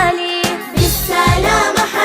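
Arabic children's song: a sung note held briefly, then several voices singing together over a steady drum beat.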